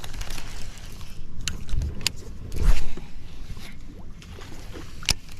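Scattered sharp clicks and knocks of gear being handled in a small fishing boat, with one louder thump about two and a half seconds in, over a low steady rumble.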